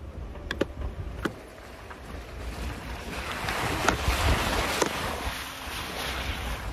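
Van tyres rolling over a rutted dirt road, with a few sharp clicks of pebbles early on, then a rising splashing hiss as the van drives through a muddy puddle around the middle. Wind rumble on the low-mounted microphone runs underneath.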